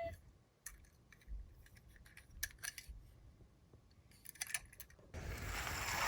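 Scattered light clicks and clinks of small die-cast toy cars being handled and set on a track. Near the end a rolling noise begins and grows as a minicar starts down the slope.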